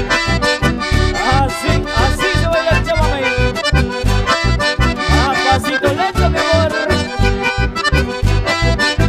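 Live accordion-led Latin American folk music from a small band, with accordion melody over a steady bass beat.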